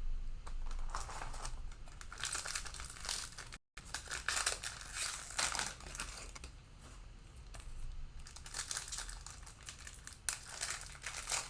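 Cellophane wrapper of a Panini Mosaic football card cello pack being torn open and crinkled, in uneven crackling spells.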